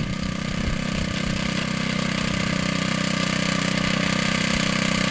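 Earthquake Versa front-tine tiller's small four-stroke engine running steadily under load as its tines churn garden soil. The engine hum builds slightly over the first second, then holds even.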